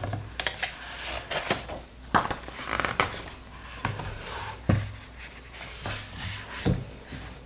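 A hardcover picture book being handled and shut: paper rustling as the pages turn, with a series of soft knocks and taps, the sharpest about two-thirds of the way through.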